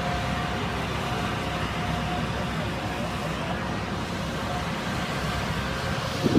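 City street ambience: a steady wash of traffic noise with a faint steady hum through it, and a brief louder sound near the end.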